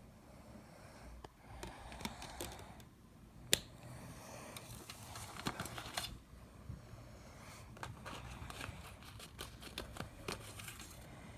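Hands handling a CD and its packaging: rustling with scattered small clicks, the sharpest click about three and a half seconds in.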